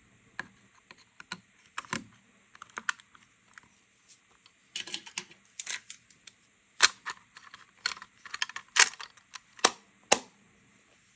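Irregular sharp clicks and taps in uneven clusters: small plastic and metal parts of a cassette Walkman being handled and worked on at close range.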